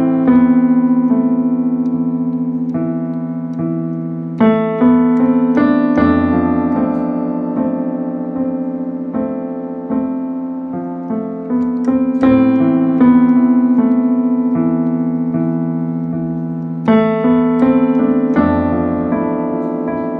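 Instrumental piano music: slow, sustained chords over a low bass, each chord struck and left to ring and fade before the next.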